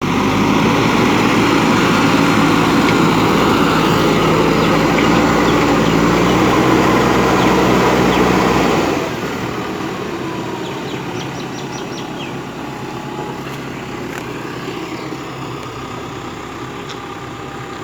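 JCB 3DX backhoe loader's diesel engine running steadily under work. About halfway through it drops suddenly to a quieter, lower level and keeps running.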